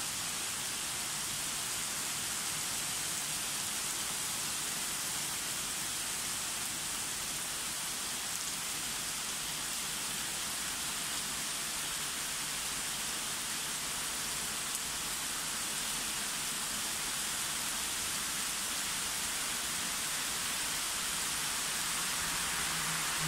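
Heavy rain pouring down onto a street and pavement: a steady, dense hiss that stays even throughout.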